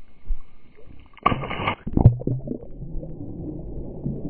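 Lake water splashing about a second in, then muffled sloshing and gurgling heard through a camera held underwater.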